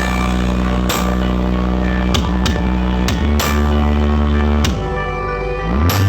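Electronic dance music played loud through a large carnival sound system. It has long, deep bass notes, sharp hits at irregular intervals, and a bass note sliding upward near the end.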